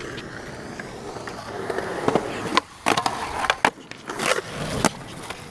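Skateboard wheels rolling over concrete with a steady grinding noise, then about half a dozen sharp clacks of the board from about two seconds in.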